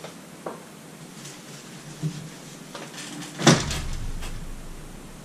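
Soft rustling and small clicks, then about three and a half seconds in one loud thump with a low rumble that fades over a second, as a man settles his weight into a folding camp chair.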